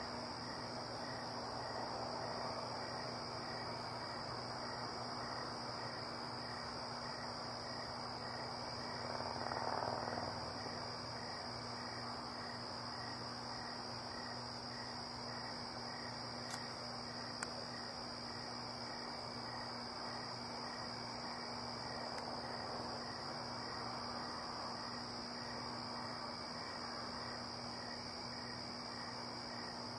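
Night-time crickets trilling steadily in a high, even chorus, with a fainter regular chirping beneath it. A brief swell of noise comes about ten seconds in, and two small clicks a little past halfway.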